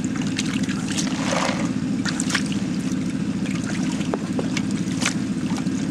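Water sloshing and trickling in a plastic gold pan as concentrate is swirled, over a steady engine hum.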